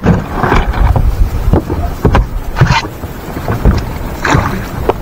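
Wind rumbling on the microphone aboard a small fishing boat on open water, with scattered short knocks and clatters as gear and the landing net are handled.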